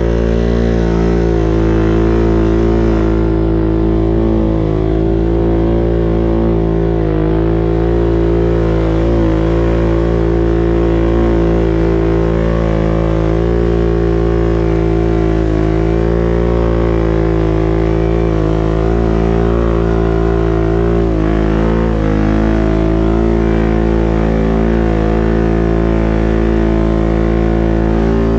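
ATV engine running steadily under load while climbing, its pitch holding nearly level with small rises and dips in throttle.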